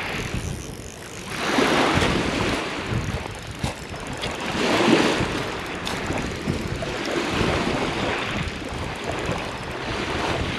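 Small sea waves breaking and washing up a shingle beach, swelling and fading in slow surges every few seconds.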